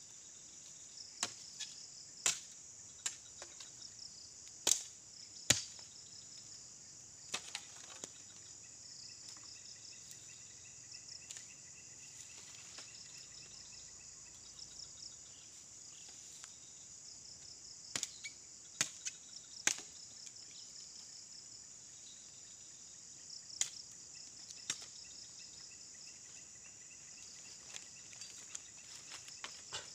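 Sharp wooden knocks and chops, scattered irregularly and bunched in two spells, as bamboo poles are cut and trimmed with a machete. Steady high chirring of insects underneath.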